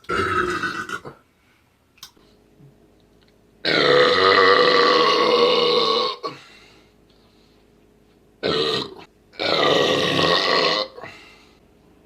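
Men belching, four separate belches: a short one at the start, a long drawn-out belch of about two and a half seconds starting about four seconds in, then a short belch and a longer one near the end.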